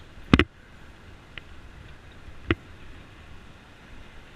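Sharp knocks from a bicycle and its mounted camera jolting over the road: a loud double knock near the start, a faint one about a second later, and another sharp one about halfway through, over a low steady rumble of road and wind.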